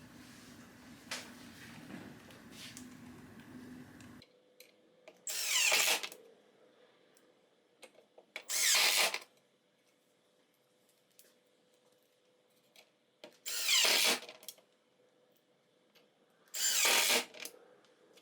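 Power drill running in four short bursts of about a second each, driving the screws that fix hinges into a cabinet door; lighter handling and rustling before the first burst.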